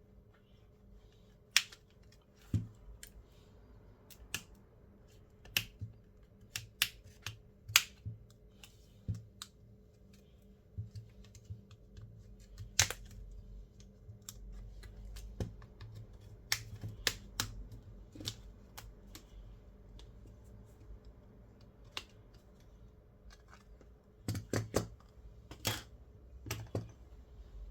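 Irregular sharp clicks and taps, some in quick clusters, of small repair tools and plastic and metal phone parts handled on a workbench as a smartphone is taken apart, over a low steady hum.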